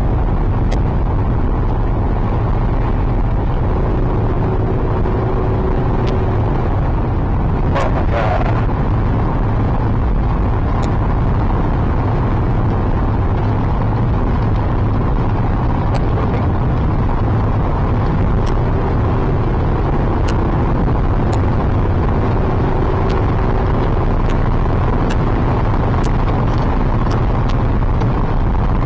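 Steady low rumble of a car heard from inside the cabin, with faint scattered clicks and a brief higher-pitched sound about eight seconds in.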